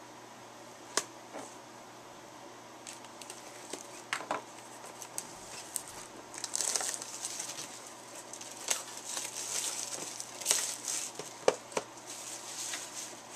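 Clear plastic packaging crinkling and rustling as it is handled, with scattered light clicks and taps. The handling gets busier from about halfway through.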